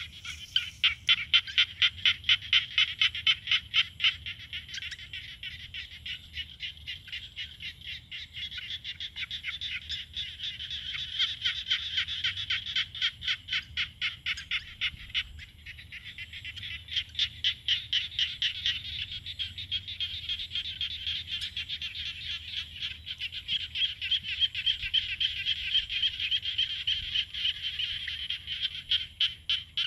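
Chorus of small frogs calling: a dense, rapid ticking trill that swells and fades in waves.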